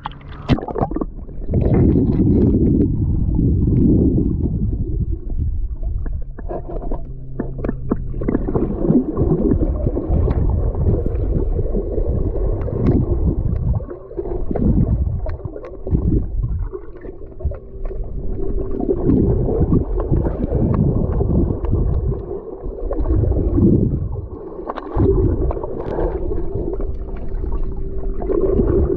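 Water gurgling and sloshing close to the microphone, with heavy low rumbling that swells and fades every few seconds and a faint steady hum underneath.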